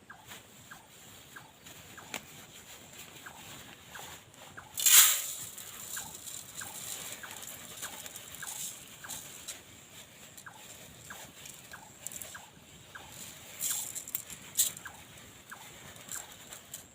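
Tarp shelter rustling and snapping in strong wind, with a loud gust about five seconds in and two shorter ones near the end. Under it runs a steady series of short chirps, about two or three a second.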